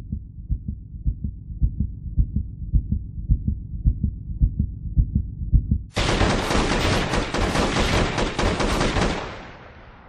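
Low, muffled thumping at about four beats a second. About six seconds in, a loud, dense volley of rapid gunfire breaks out and then fades away near the end.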